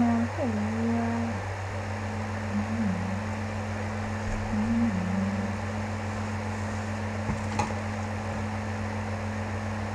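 A woman softly humming a tune for about the first second and a half, then two brief hummed notes, over a steady electrical hum; a single light click about seven and a half seconds in.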